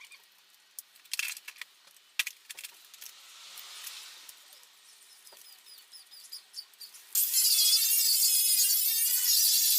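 Scattered light clicks and scrapes of handling, then about seven seconds in an angle grinder bites into rusty steel of the Rover Mini's bodywork, a sudden loud, steady high-pitched grind that wavers as the tool moves.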